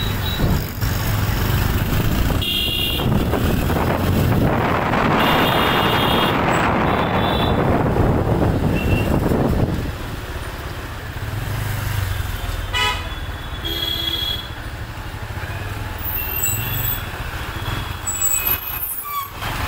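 Street traffic in a crowded market lane: vehicle engines running, with several short horn honks. A loud rushing noise fills the first half and eases off about ten seconds in.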